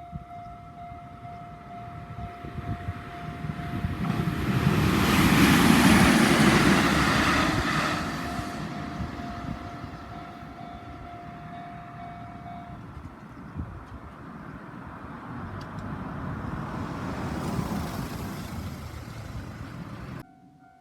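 Railway level-crossing warning bell ringing with a steady repeating tone while a train passes loudly, about four to eight seconds in. The bell stops a little past halfway, and a second, quieter passing rumble follows near the end before the sound cuts off.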